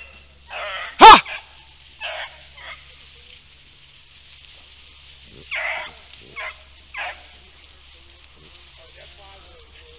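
Rabbit-hunting hounds giving voice in the brush while working a rabbit: one sharp, loud yelp about a second in, then a handful of short, fainter barks spread over the next several seconds.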